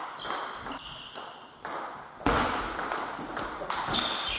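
Table-tennis rally: the celluloid-type ball is struck back and forth between bats and bounces on the table, each hit a sharp click with a short high ringing tone, several times. About halfway through there is a louder, noisier sound.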